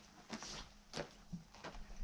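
Faint handling noise: a short rustle about half a second in, then several light clicks and knocks as parts are moved about by hand.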